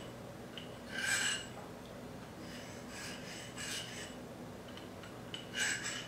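Ceramic sharpening rod scraping across the teeth of a Victorinox Swiss Army knife saw blade in short passes, alternating sides tooth by tooth, to bring back the edge of the dulled teeth. The strongest stroke comes about a second in, with lighter ones after and a pair near the end.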